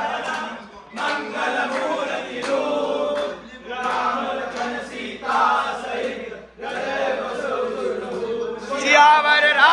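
A group of men singing or chanting together in unison, in phrases of a few seconds with short breaks. Near the end they break into loud shouting and cheering.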